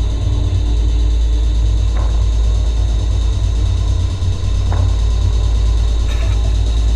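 Steady low rumble of a car driving, heard from inside the cabin. A faint short swish comes about every two and a half seconds, the windshield wipers sweeping rain off the glass.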